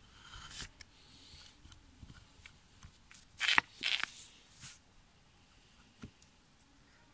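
Hand carving gouge shaving a chip from the edge of a softwood board at the start, then a few short, louder scrapes and rustles around the middle and a light tap near the end.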